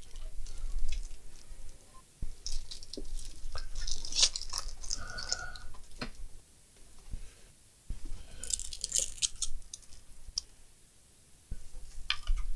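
Handling noise as a laptop charger and its cable are fetched and plugged in: scattered plastic clicks, knocks and rustling, busiest about three seconds in and again about eight seconds in.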